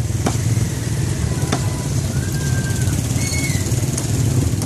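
Busy street ambience under a steady low engine rumble, with two sharp knocks in the first couple of seconds and a short high-pitched tone near the middle.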